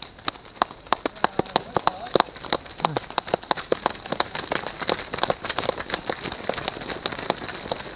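Footsteps of a large pack of runners slapping on an asphalt road as they pass close by: a dense, irregular patter of sharp steps.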